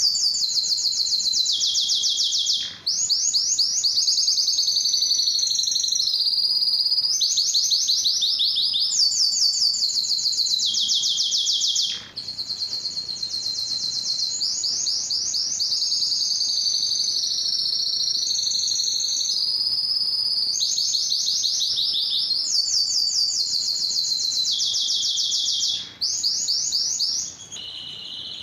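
Male domestic canary singing a long, high-pitched song of fast rolling trills and changing phrases, with a few short breaks.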